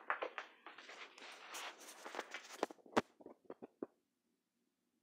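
A backpack being handled close to the microphone: fabric rustling with light knocks, then a string of sharp clicks about three seconds in, which stop about a second later.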